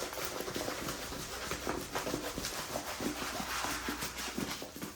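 Handling noise from a diamond painting canvas and its plastic dust bag: irregular rustling and crinkling with many small clicks as the rolled canvas is moved and unrolled.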